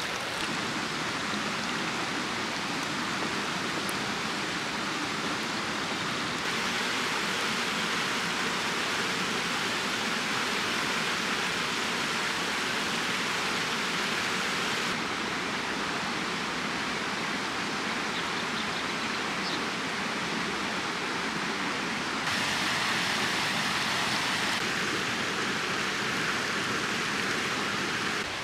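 Steady rushing of a flowing stream, its loudness and brightness changing abruptly a few times.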